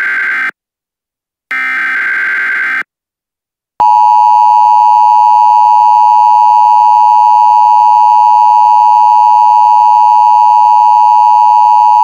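Emergency Alert System header tones: the tail of one short screechy data burst, then a second full burst ending about 3 s in. After a second of silence a loud, steady attention tone starts and holds without a break.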